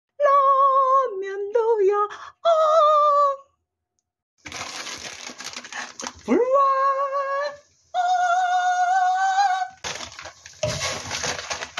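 High, drawn-out vocal-like tones, then the crinkle and rustle of an instant-ramen soup packet being torn and shaken into a pot of boiling water. Two more long, held tones run over the rustling, the first sliding up before it holds.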